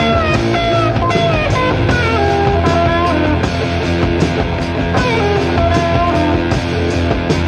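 Blues-rock band music: an electric lead guitar plays bent, sustained notes over a steady bass and drum backing, with no singing.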